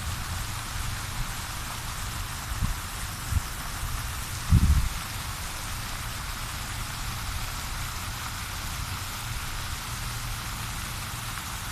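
Steady hiss of falling, splashing water from a waterfall or fountain, with a few low thumps, the loudest about four and a half seconds in.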